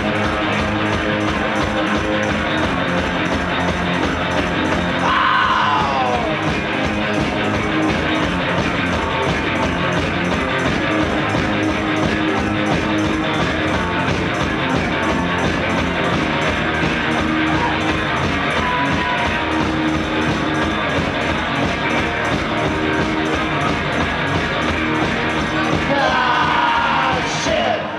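Live rock band playing a song loud through a club PA: electric guitar and singing over a fast, steady beat. The song stops right at the end.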